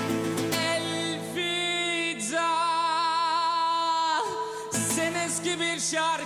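Harmonica playing a slow instrumental melody with wavering held notes, one long note in the middle, over acoustic guitar accompaniment.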